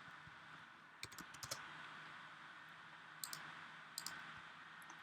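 Scattered clicks of a computer mouse and keyboard: a quick run of four or five about a second in, then pairs a little after three and four seconds in, over a faint steady hum.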